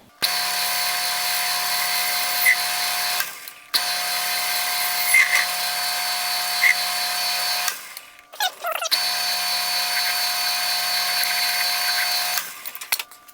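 Metal lathe running with a steady whine as it turns aluminum stock, taking light cuts down toward a quarter-inch diameter. It runs in three stretches, stopping twice briefly.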